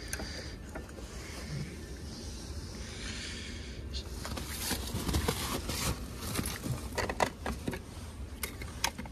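Hands working on electrical wiring and a metal box: scraping, with a run of short clicks and knocks from about four seconds in, over a low steady rumble.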